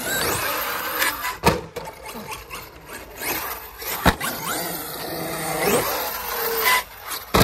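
Arrma Kraton 8S RC monster truck driving over skate-park ramps: its brushless motor whines up in rising bursts over tyre scraping and rubbing, with two sharp knocks about a second and a half and four seconds in.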